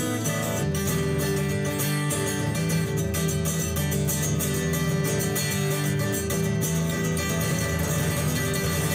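Acoustic guitar playing a steady instrumental break in a song, with no singing.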